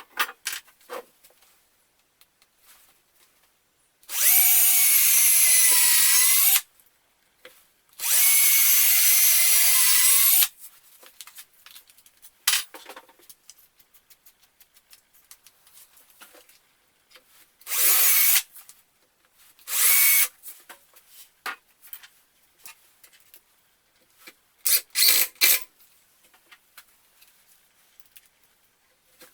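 Electric drill running in two long bursts of a few seconds each, then several short bursts, with a steady motor whine. Light knocks and handling clicks sound between the runs.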